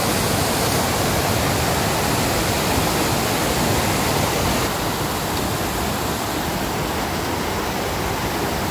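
Water rushing steadily down a small rocky waterfall close by, a loud, even noise that eases slightly a little past halfway.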